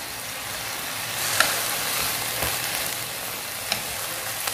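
Sweet potato leaves sizzling in hot oil in a frying pan as they are tossed with chopsticks, with a couple of light clicks of the chopsticks against the pan.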